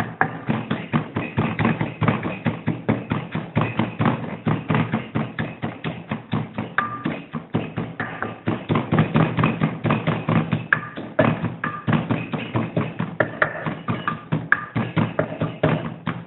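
Wooden pestle pounding in an earthenware mortar, a steady run of dull knocks about three a second, crushing chillies and aromatics into a paste. Background music plays under the pounding.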